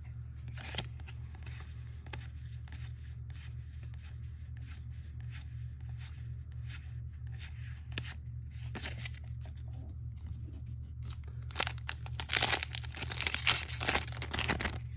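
Magic: The Gathering booster pack's foil wrapper being torn open, a loud crinkly tearing for about three seconds near the end. Before it, soft ticks and rustles of trading cards being leafed through in the hand, over a steady low hum.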